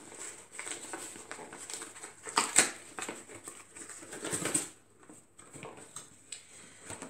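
Cardboard box being opened by hand: irregular scraping and rustling of the cardboard lid and flaps, with two louder bursts about two and a half and four and a half seconds in, then quieter handling.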